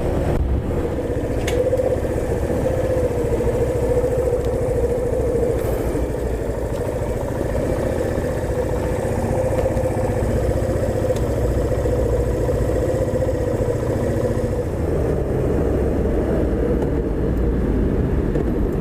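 Suzuki RV125 VanVan's single-cylinder four-stroke engine running while riding, holding a nearly steady pitch with a slight dip a few seconds before the end.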